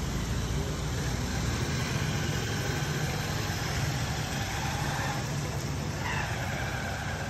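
A small car and then a motor scooter pass along a rain-wet street, with engine hum and tyre hiss on the wet road over steady rain.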